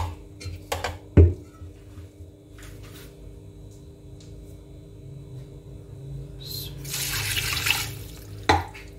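A couple of hard knocks about a second in, then water pouring for about two seconds near the end, the water for boiling the mutton stock. A faint steady hum runs underneath.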